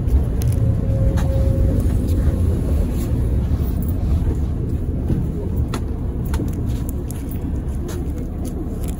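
Tatra T3SU tram running, heard from inside the passenger car: a steady low rumble with scattered knocks and rattles.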